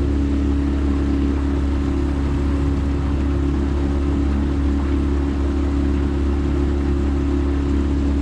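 Small 9.9-horsepower outboard motor on a jon boat running at a steady speed, with an even hum that does not change.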